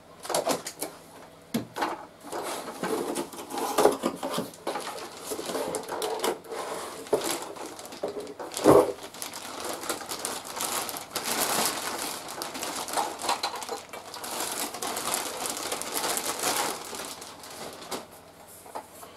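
Packaging of a table-saw fence being handled: cardboard and plastic bag rustling and crinkling, with scattered knocks. The loudest is a sharp knock about nine seconds in.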